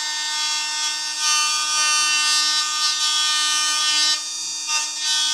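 Cordless 12V rotary tool running at a steady high speed with a constant whine. About a second in it grows louder and grittier as the bit works into wood, eases off briefly around four seconds in, then bites again.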